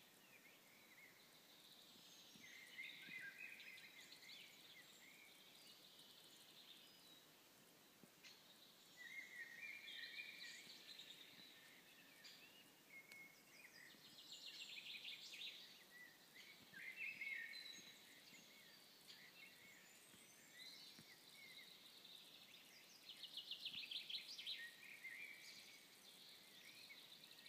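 Faint songbirds singing: short phrases of chirps and rapid trills recurring every few seconds, over a faint steady hiss.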